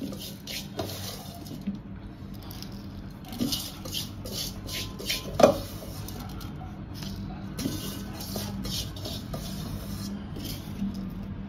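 Coarse pickle masala being scooped from a bowl and piled into a plastic tub: light scraping, rustling and clinks of the containers, with one sharp knock about five seconds in.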